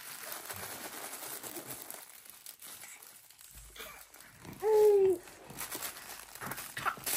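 Crinkly fabric baby toy rustling and crackling as it is handled and grabbed. About two thirds of the way in comes one short, high-pitched vocal sound that rises and falls, the loudest thing heard.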